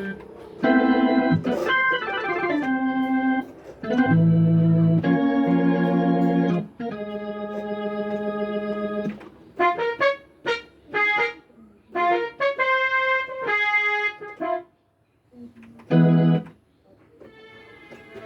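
Korg PS60 stage keyboard playing chords in an organ-like voice. It plays held chords at first, then short repeated chords, a brief pause and one last short chord.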